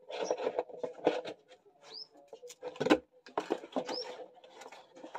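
Paper and packaging being handled: irregular rustling and light knocks, with one louder knock about three seconds in. A bird gives two short rising chirps in the background.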